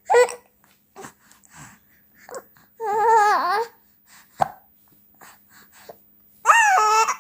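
Four-month-old baby cooing and babbling: a short high call at the start, a longer wavering one about three seconds in, and another near the end, with small breaths and mouth sounds between and a brief click in the middle.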